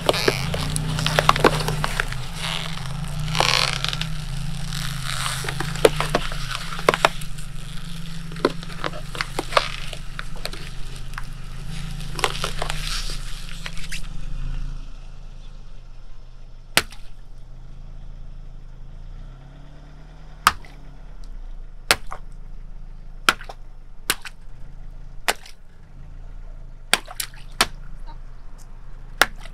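Car tyre rolling over and crushing plastic egg cartons, a long run of crackling and crunching over a low steady hum. About halfway the crushing stops, and single sharp snaps and pops follow every second or two as the tyre presses down on plastic packets.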